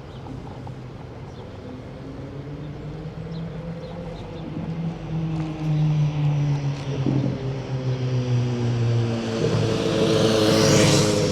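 Car traffic on a city street: an engine running close by, its pitch drifting slowly, growing louder until a vehicle passes close near the end with a loud rush.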